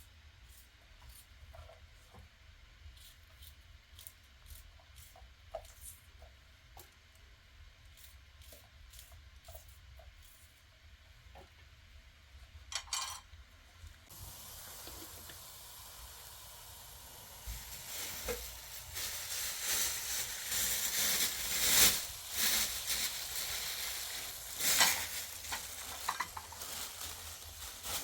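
Food sizzling in a hot pan. About halfway in, after faint scattered clicks, a crackling hiss starts suddenly and grows louder, with sharp spits.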